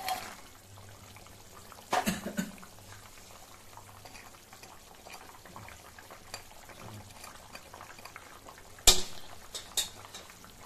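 Curry bubbling gently in a kadai, with a steel bowl and spatula clinking against the pan a few times. There is a clink at the start, another about two seconds in, and a pair near the end, the loudest about nine seconds in.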